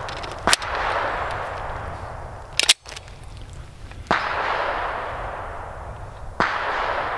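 A PSA Dagger 9mm pistol fired four times, a second and a half to two seconds apart, each shot trailing off in a long echo.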